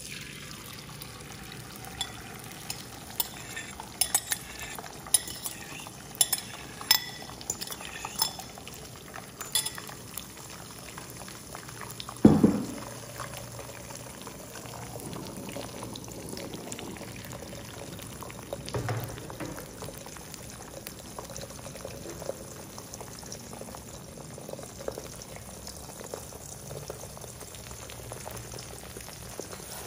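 Beaten egg poured into hot oil in a nonstick frying pan, sizzling and bubbling as it fries, with sharp crackling pops over the first ten seconds or so. A single loud thump about twelve seconds in.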